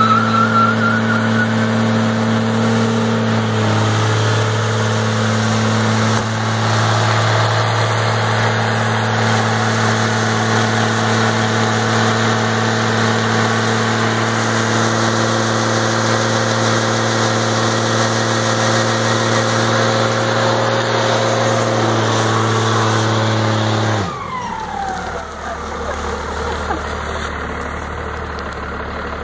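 Dodge pickup truck's engine held at high, steady revs during a long burnout, its rear tyres spinning on the pavement. About 24 seconds in, the revs drop off sharply and the engine settles to an idle.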